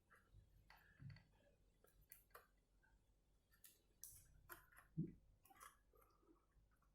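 Faint small clicks and taps from handling a laptop RAM module while fitting it into its slot, with one louder thump about five seconds in.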